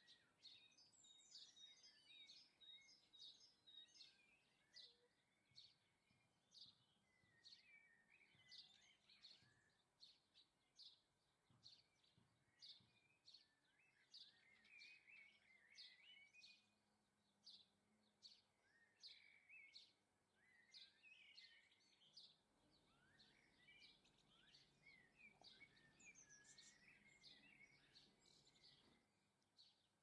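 Faint songbird calls and song: a run of short, high chirps about once or twice a second, with bursts of warbling, twittering song between them.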